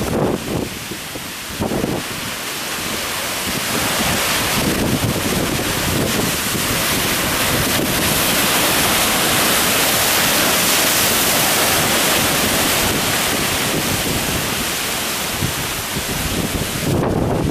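Heavy typhoon swell surging and breaking at a harbour: a long wash of white water that builds to a peak about midway and then eases, with wind buffeting the microphone near the end.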